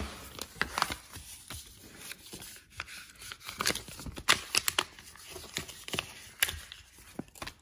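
Packaging being handled: crinkling plastic wrap and rustling paper, with irregular sharp crackles and taps against the cardboard box.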